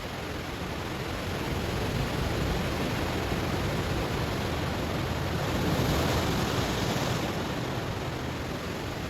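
Ocean waves breaking on a stony shore: a steady surf wash that swells to a peak about six seconds in, with extra hiss, then eases off.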